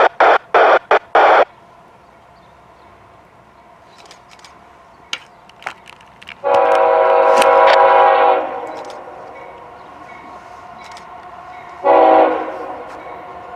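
Approaching CSX diesel freight locomotive's multi-note air horn: one long blast about six and a half seconds in and a short blast near the end, part of a grade-crossing warning sequence. In the first second and a half, four short loud rushes of noise.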